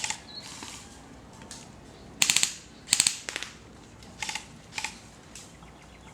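Airsoft guns firing short automatic bursts of rapid clicking shots: two louder bursts about two and three seconds in, then shorter, quieter bursts a second or two later.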